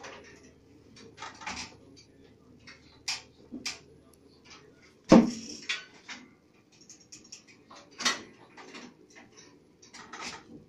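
Manual rotary screen-printing press being worked by hand: irregular metal clicks and knocks as a screen print head is swung up and down. The loudest is a sharp clank about five seconds in.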